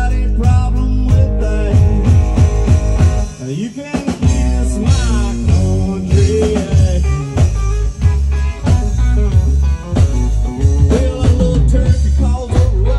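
Live country rock band playing: electric guitar, bass guitar and drum kit. The bass and drums drop out briefly about three and a half seconds in, then the full band comes back.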